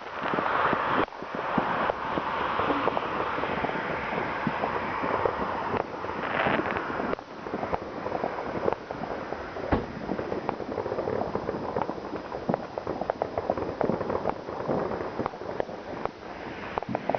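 New Year's Eve fireworks going off. A loud hiss with scattered bangs gives way, about halfway through, to a dense run of sharp cracks and pops in quick succession.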